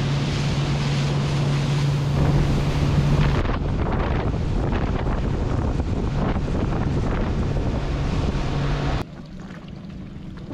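Boat engine running at speed across open sea, a steady drone with heavy wind buffeting the microphone and water rushing past the hull. The sound changes abruptly about three and a half seconds in, and drops much quieter about nine seconds in.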